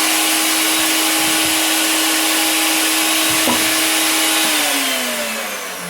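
Harbor Freight 1-3/4 HP router in a router table running at full speed with a steady high whine, then switched off about four and a half seconds in, its pitch falling as the motor spins down.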